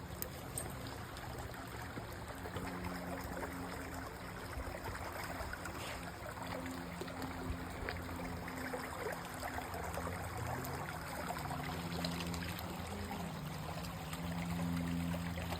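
Small creek trickling and babbling steadily over rocks. A faint low hum runs underneath and shifts in pitch a little past the middle.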